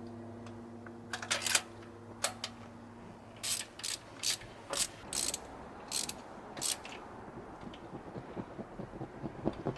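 A new spark plug being worked into its hole with hand tools: about a dozen short bursts of clicking between about one and seven seconds in, then fainter clicking.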